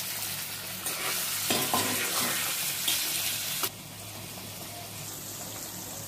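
Chicken and potato curry sizzling loudly in a kadai as a little water goes in and the pieces are stirred with a metal spoon, with a few clicks and scrapes of the spoon. A little under four seconds in, the loud sizzle cuts off abruptly, leaving a quieter steady hiss of the pan cooking.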